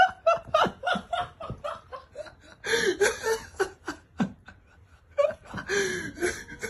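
A person laughing in quick repeated pulses, with louder fits of laughter about three seconds in and again near the end.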